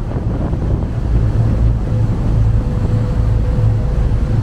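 Tourist riverboat's engine running with a steady low rumble, mixed with the rush of water and wind noise on the microphone.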